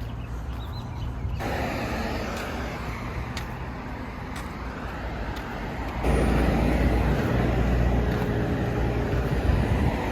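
Car driving: steady road and engine noise with a low rumble, growing louder about six seconds in.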